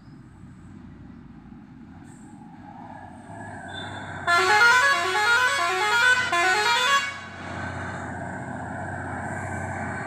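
Heavy diesel truck's engine running as it approaches, growing louder. From about four seconds in, a loud musical horn sounds a quick repeating run of short rising notes for about three seconds.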